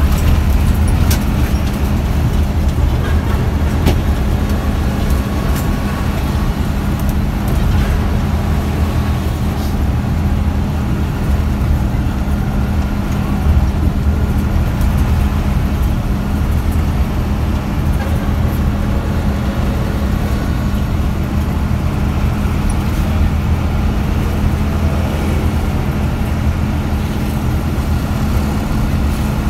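Coach engine running steadily at road speed with tyre and road noise, heard from inside the cabin beside the driver: an even, unbroken low drone.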